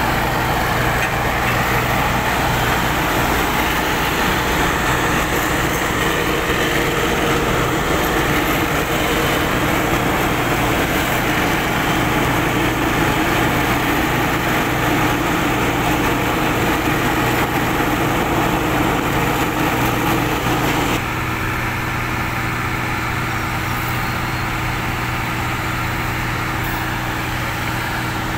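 Volvo P5320B tracked asphalt paver's diesel engine and paving machinery running steadily while a dump truck feeds it, a constant low hum under a broad mechanical noise. About two-thirds of the way through the sound drops a little and a steady, higher humming tone takes over.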